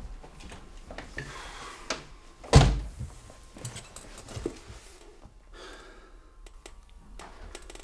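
A single dull thunk about two and a half seconds in, with a few faint clicks and soft rustling in a small room.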